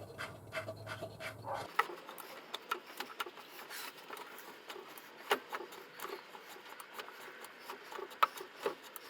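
Wooden parts of a table-saw sled being handled and swung on a single screw, with scattered light clicks and knocks over a faint rubbing sound.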